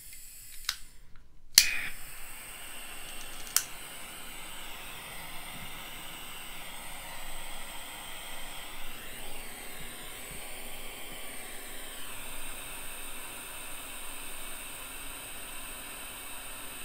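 Dremel 2000 butane soldering torch: two igniter clicks, then from about a second and a half in a steady hiss of burning gas, with one more sharp click a couple of seconds later.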